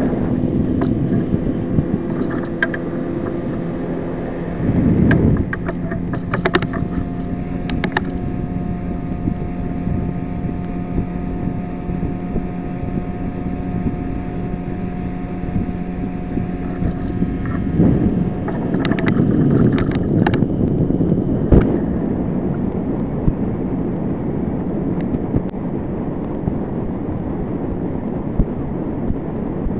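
Outboard motor running steadily as the fishing boat travels at speed, with wind noise on the microphone and occasional thumps.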